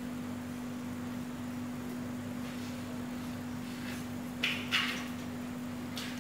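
A steady low hum throughout, with two short high yelps from play-fighting puppies about four and a half seconds in and a fainter one near the end.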